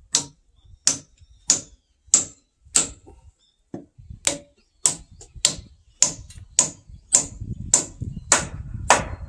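Hammer striking wood in steady, evenly spaced blows, about fifteen in all, roughly one and a half a second. A low rumble sits under the last couple of blows.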